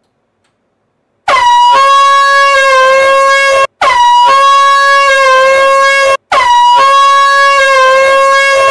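Handheld canned air horn giving three loud blasts in quick succession, each about two and a half seconds long and separated by a split-second gap. Each blast opens with a quick drop in pitch before settling into a steady blare; the first starts about a second in and the last is still sounding at the end.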